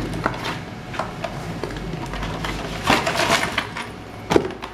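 Hands handling and opening a cardboard sandal box, with scattered clicks and scrapes of cardboard, a denser burst of rustling about three seconds in, and a sharp knock near the end as the sandal is lifted out.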